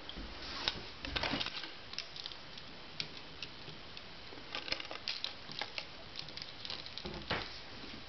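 Handling noise: scattered light clicks, taps and rustles, in small clusters about a second in, around the middle and once more near the end.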